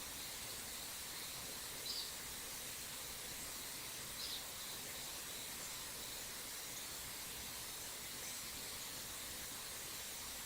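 Steady rushing of a small stream, with two short, high bird call notes, about two seconds apart.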